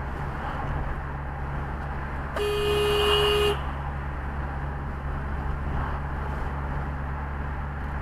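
Car horn sounding once, a steady blast of about a second, honked at a slow driver in the passing lane. Steady road and engine hum runs under it.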